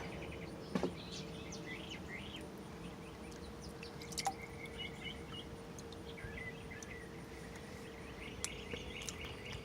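Small birds chirping in short rising and falling calls over the steady low drone of an airplane passing overhead, with a couple of sharp clicks about a second in and about four seconds in.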